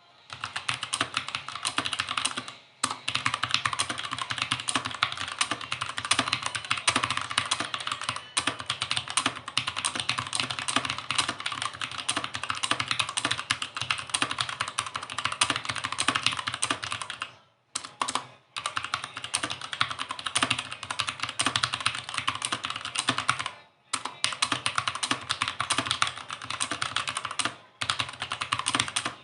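Fast, continuous typing on a mechanical keyboard: a rapid stream of key clicks, broken by a few short pauses.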